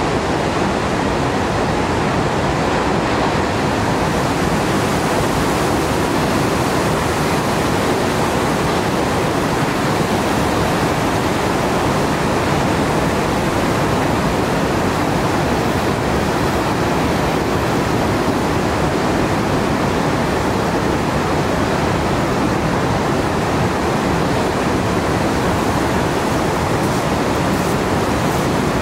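Steady, even roar of ocean surf breaking on the reef, a constant hiss with no single wave crash standing out.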